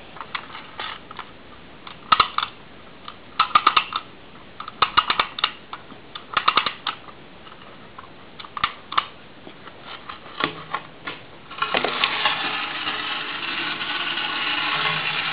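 Clockwork tin clown-on-motorcycle toy being wound by hand: irregular bursts of ratchet clicks as the spring is wound. After about twelve seconds the released clockwork motor starts a steady whirring as the toy runs.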